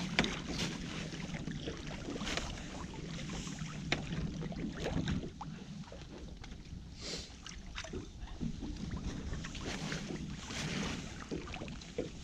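A wet drift net being hauled in by hand over a boat's gunwale: water splashing and dripping off the mesh, with irregular knocks and rustles of the net and floats against the boat.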